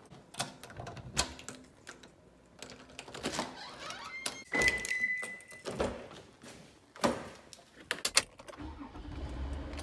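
Clicks and rattles of a door knob and lock being turned, with keys jangling, then a car door being pulled shut with a thunk. A steady electronic beep lasts about a second midway.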